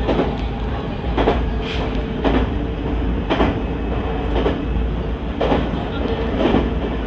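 Train running on jointed track, heard from on board: the wheels clack over the rail joints about once a second over a steady rumble.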